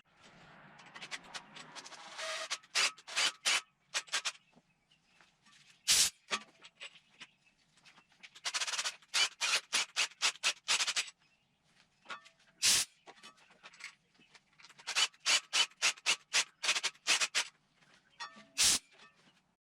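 Compressed-air blow gun fired in quick short blasts, several a second in three runs, with a few single sharper blasts between, blowing debris out of the head-bolt holes of an LS 5.3 engine block after the threads were chased.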